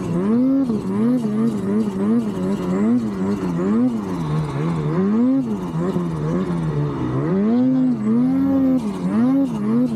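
Ski-Doo Expert turbo snowmobile's two-stroke engine revved up and down in quick throttle blips, its pitch rising and falling a few times a second with a few slower, longer swells: a sing-song 'snowmobile talk' or engine 'language' that sounds almost like words.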